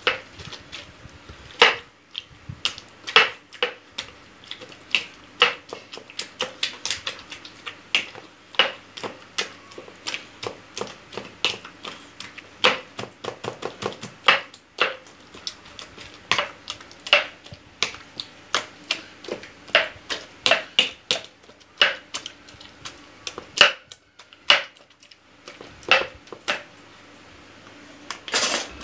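A thick-bottomed drinking glass knocking and clinking against a stainless steel tray as roasted eggplant, tomatoes and peppers are mashed with its base. The sharp taps are irregular, two or three a second, with a brief pause near the end.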